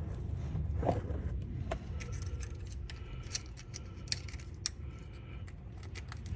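Irregular metallic clinks and taps of tools and hardware as the shifter and shift linkage are bolted in, over a low steady background hum.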